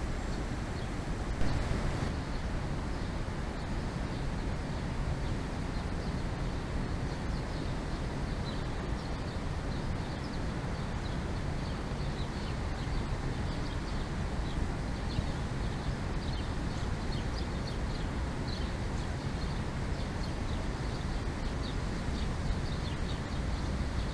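Sparrows chirping again and again in short high notes over a steady low rumble. A brief thump about a second and a half in.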